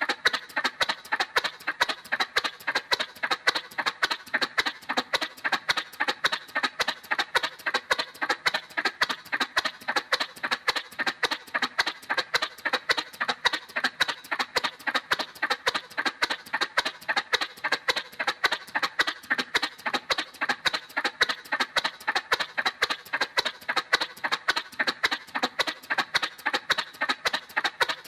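Cartoon motorcycle sound effect: a quick, even putt-putt of pulses, about four a second, repeating steadily.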